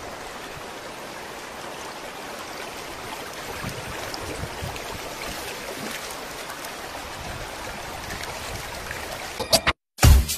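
Shallow river water running and rippling over stones at the bank, a steady rush that cuts off suddenly near the end.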